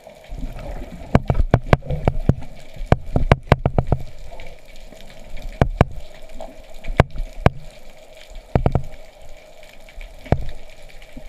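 Underwater sound picked up through a camera housing: a steady faint hum under a run of sharp clicks and knocks with low thuds, thickest in the first four seconds, then in pairs around six to seven seconds and again near nine and ten seconds.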